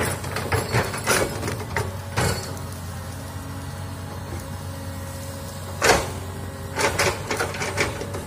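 Komatsu hydraulic excavator with its diesel engine running steadily while its arm works in brush, broken by several sharp cracks and knocks; the loudest comes about six seconds in, with a quick cluster about a second later.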